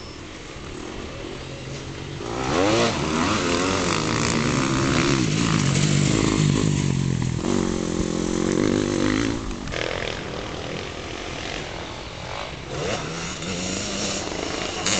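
Off-road motorcycle engines revving as riders pass on a dirt track. The loudest pass starts about two seconds in: a bike accelerating hard through a corner, its pitch rising and falling with the throttle, and fading a little before ten seconds. Another bike's engine comes closer near the end.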